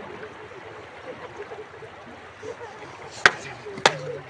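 Steady rush of water flowing along a concrete irrigation canal, with faint distant voices. About three seconds in come two sharp knocks, roughly half a second apart.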